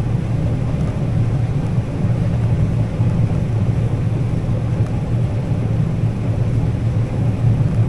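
John Deere 9400 combine running steadily while harvesting corn: a continuous low engine and machinery rumble.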